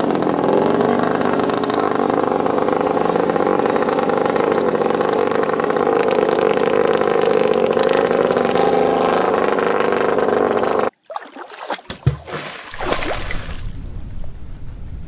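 Long-tail racing boat's engine running flat out at a steady high pitch. About eleven seconds in it cuts off abruptly, and a thunder-and-rain effect follows: cracks, a low thump and a hiss.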